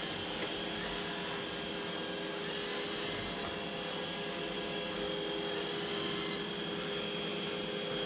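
iRobot Roomba i4 robot vacuum running on a hard floor: a steady hum with a faint high whine, holding an even level.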